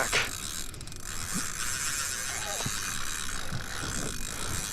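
Drag of a Penn Fierce 3 spinning reel buzzing steadily as a hooked tarpon pulls line off, growing a little louder near the end as the fish starts a run.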